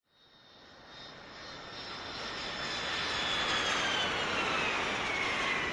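Jet airliner passing overhead: its engine noise swells out of silence over a few seconds, with a high whine that falls steadily in pitch as it goes by.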